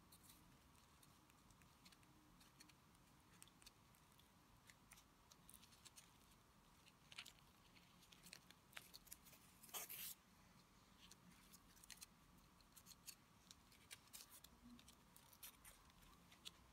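Near silence with faint scattered clicks and light rustles of hands handling florist tape, wire and gumpaste petals on a wired sugar peony. One rustle about ten seconds in is a little louder.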